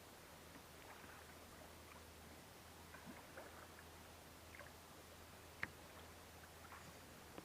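Near silence around a kayak on the water: faint small drips and lapping against the hull over a steady low hum, with one sharp tap about five and a half seconds in.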